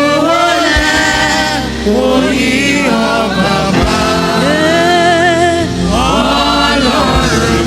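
Church gospel choir singing a praise song, the voices holding long notes that slide up and down in pitch.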